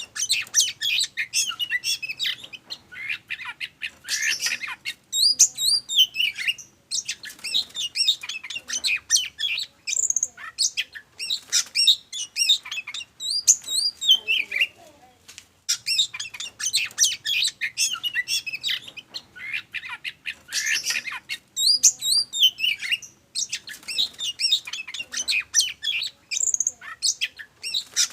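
Oriental magpie-robin (kacer) singing a fast, varied song of high whistles, trills and chattering notes, in bursts with brief pauses. The same run of song starts over about halfway through, as a looped lure recording meant to provoke other magpie-robins into singing.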